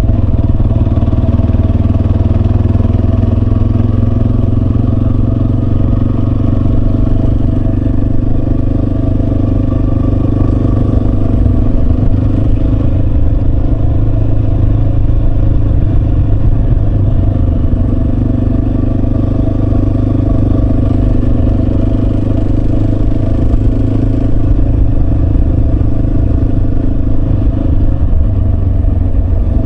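Yamaha Serow 250's air-cooled single-cylinder four-stroke engine running at a steady pace while riding.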